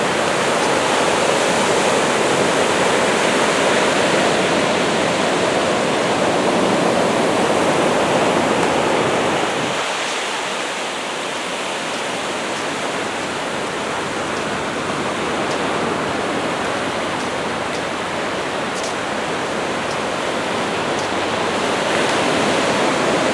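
Steady hiss of small waves washing onto a sandy beach, easing slightly about ten seconds in.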